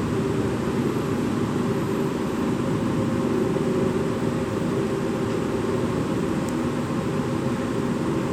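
Steady mechanical hum and hiss, like ventilation or air-conditioning running, with a low hum that does not change.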